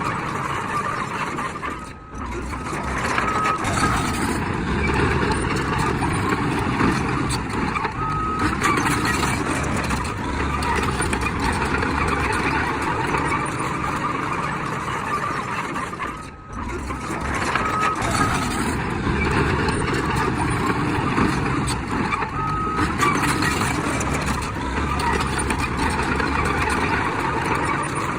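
Heavy earthmoving machinery running under load, with short high reversing-alarm beeps sounding singly or in pairs every few seconds.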